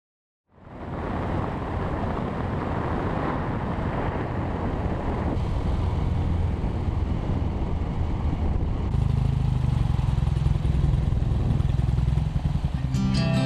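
BMW air-cooled boxer-twin motorcycle running steadily at road speed under wind and road noise. The engine note grows stronger about nine seconds in, and acoustic guitar music comes in right at the end.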